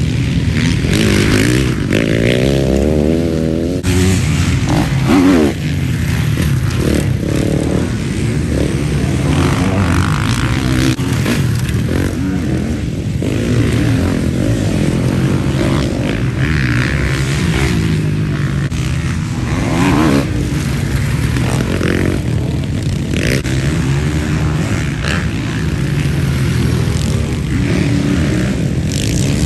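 Several motocross bikes racing through a dirt corner one after another. Their engines are revved hard, with notes rising and falling as riders back off and accelerate out of the turn.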